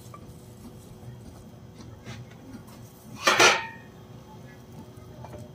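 Metal clank of iron skewers knocking together as meat-laden skewers are set in place in a pit tandoor: one loud, briefly ringing clatter a little past the middle, with a few light taps before it.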